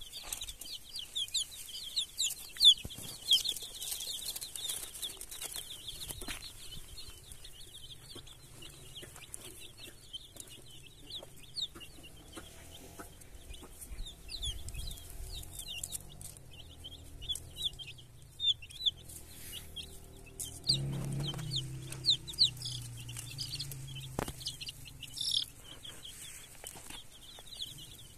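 Chicks peeping: many short, high chirps overlapping in a steady chatter, with lower clucking from a mother hen in the middle stretch.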